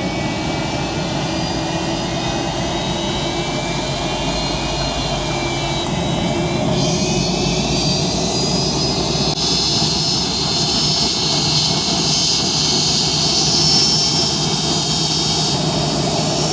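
Airliner's jet engines heard inside the cabin while the plane taxis: a steady rush with a high turbine whine whose pitch drifts slightly, growing a little louder about six and again about nine seconds in.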